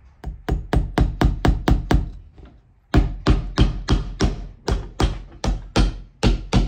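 A hammer rapidly driving iron hobnails into a leather boot sole held on a metal last: sharp metallic blows about five a second, with a brief pause a little past two seconds in.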